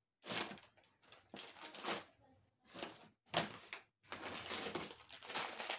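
Rustling and handling noises as purchases are rummaged through: several short rustles with brief gaps, then steadier rustling in the second half.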